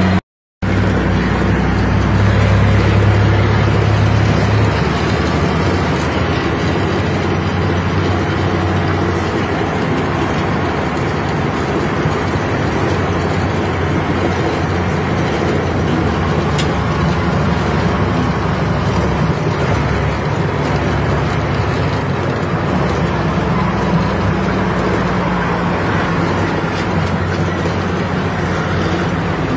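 Heavy diesel truck engine running steadily on the road, heard from inside the cab along with tyre and road noise. The sound cuts out completely for about half a second just after the start.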